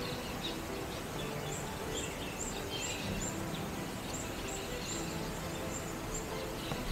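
Outdoor ambience with a run of short, high chirps repeating about two or three times a second over a low, steady hum.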